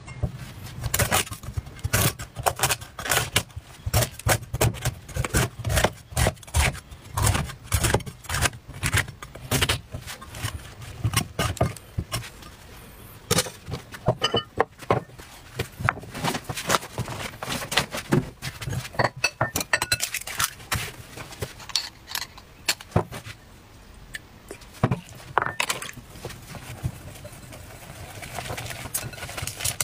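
Cleaver blade chopping into a spiky durian husk on a wooden board, a long run of sharp knocks and cracks. Near the end comes the softer scraping of a utensil stirring a mixture in a glass bowl.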